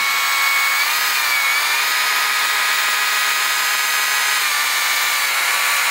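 Dolmar cordless chainsaw running steadily at high speed: a high electric motor whine with the chain spinning, its pitch dipping briefly about a second in.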